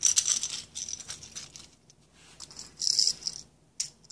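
Die-cast toy cars being picked up, slid and set down on concrete: several short bursts of rattling and scraping.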